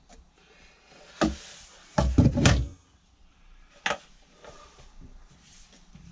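Knocks and a short rattling clatter of a metal telescopic drawer runner being handled and laid down on a plywood cupboard floor: a knock about a second in, a louder clatter around two seconds in, and another knock near four seconds.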